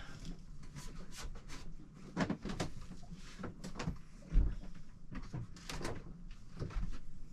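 Irregular knocks, clicks and rattles of things being handled in a small enclosed space, with one heavier thud about four seconds in.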